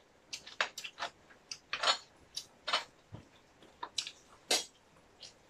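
Close-up eating sounds: irregular sharp clicks and scrapes of a spoon on a plate, mixed with chewing and mouth smacks.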